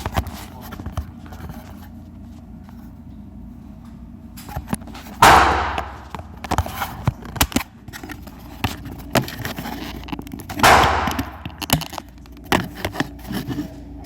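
Two shots from an AR-15 rifle fitted with a fake suppressor, about five and a half seconds apart, each a sharp crack that trails off. Lighter clicks and knocks come between them.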